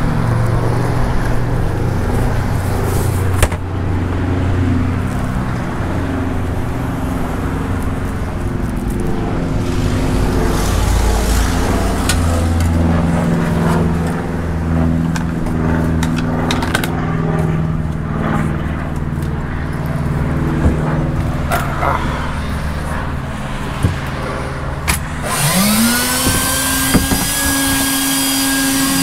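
Background music with low held notes that change every second or two. About 25 seconds in, a vacuum cleaner's motor starts up, its whine rising in pitch and then settling to a steady tone.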